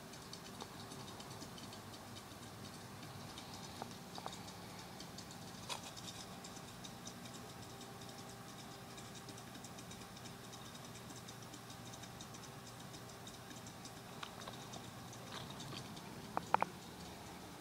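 Faint, steady hum of an aquarium pump, with a fine crackle of tiny ticks over it. A brief ringing clink comes near the end.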